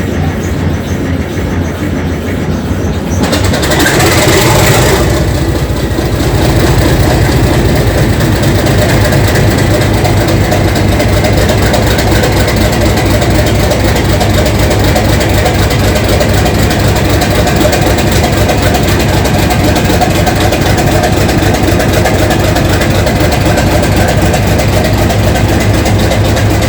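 English Electric diesel engine of locomotive DG 772 starting up. A steady low hum gives way about three seconds in to a loud rush of noise lasting a couple of seconds, after which the engine runs steadily at idle, louder than before.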